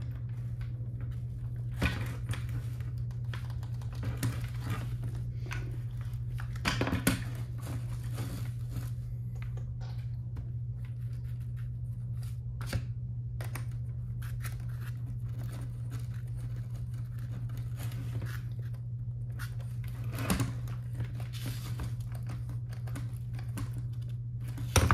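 Hands fitting the front hub and wheel onto a Tamiya CC01 RC car: scattered small plastic clicks and knocks as the parts are pushed and handled, a few seconds apart, over a steady low hum.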